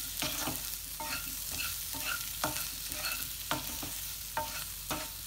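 Potatoes with spice powders frying in oil in a pan, sizzling, as they are stirred. The stirring utensil scrapes and knocks against the pan every second or so.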